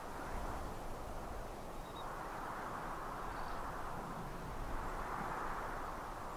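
Wind rustling through tree foliage, rising and easing in slow swells over a low rumble.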